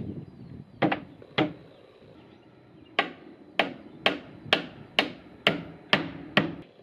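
Hammer blows on a wooden cladding board: two strikes about a second in, then after a pause a steady run of about eight blows, roughly two a second.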